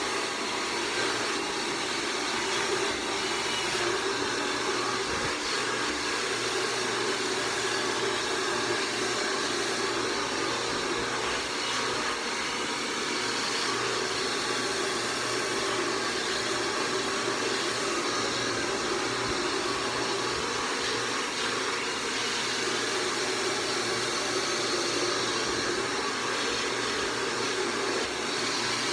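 A conventional handheld blow dryer running steadily as it dries hair: an even rushing hiss of air with a low motor hum underneath.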